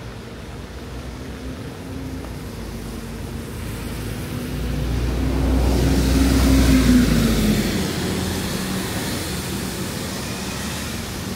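A car passing close by on a wet street. The engine hum and the tyre hiss on wet pavement swell to a peak a little past halfway, the engine tone drops in pitch as it goes by, and then the hiss fades.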